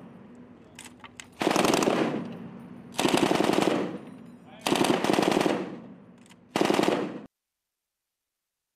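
M240B 7.62 mm belt-fed machine gun firing four short bursts about a second and a half apart, each under a second long, with the shots ringing away between bursts. The last burst cuts off abruptly.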